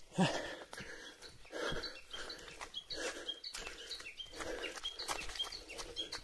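Footsteps of a hiker walking downhill on a trail, a scuffing step roughly every half to three-quarters of a second, with short high chirps or tinkles repeating over them.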